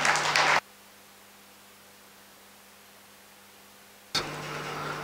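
Low steady electrical hum from the hall's microphone and sound system in a pause between words. A short burst of broad noise opens it, then the sound drops almost to nothing for about three and a half seconds before the hum and room noise come back suddenly.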